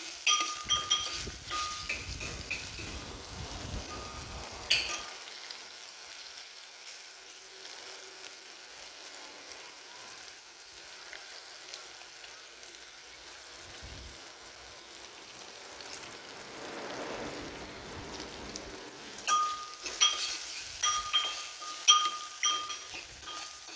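Lemongrass, garlic, chilies and kaffir lime leaves sizzling in oil in a small clay pot, stirred with a metal ladle. The ladle clinks against the pot for the first few seconds and again near the end, with an even sizzle in between.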